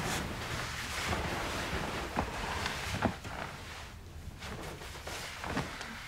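Bedding and clothing rustling as people shift about on a bed, with a few soft knocks and brushes standing out, the clearest about three seconds in.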